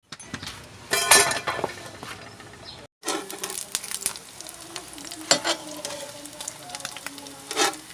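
Slices of Spam frying in a hot skillet, a steady sizzle broken by a few sharp clicks of a utensil against the pan, with a brief break about three seconds in.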